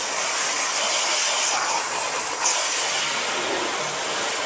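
High-pressure water jet from a Ballorex B7KS-CW130 pressure washer spraying against a car door: a steady, loud hiss of spray.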